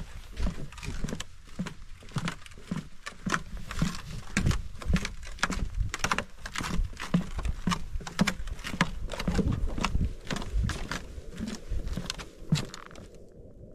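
Footsteps of hiking boots on a wooden plank boardwalk: hollow knocks on the boards at a steady walking pace, dying away shortly before the end.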